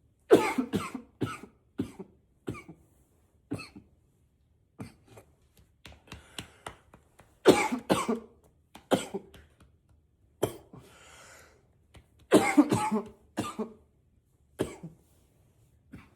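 A man in a coughing fit, coughing into a pillow to muffle it. The coughs come as short, sharp bursts, some single and some in quick runs of several, with the loudest runs near the start, in the middle and about three-quarters through.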